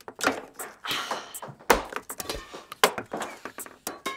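Badminton rackets hitting shuttlecocks, and shuttlecocks knocking against a plastic cup and a TV set. An irregular string of sharp knocks and thunks, the loudest about one and a half seconds in.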